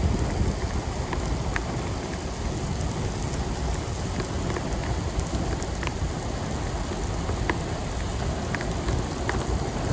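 Rain falling steadily on a car, with single drops ticking sharply every so often, over a low steady rumble.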